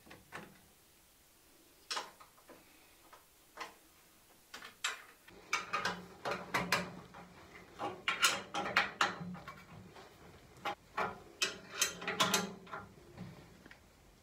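Irregular metal clicks, clanks and knocks of table-saw parts and hand tools being handled during assembly. A few at first, then a thick run of them through the middle and latter part.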